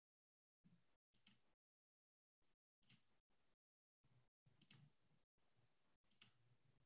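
Near silence broken by four faint computer clicks about a second and a half apart, as presentation slides are advanced.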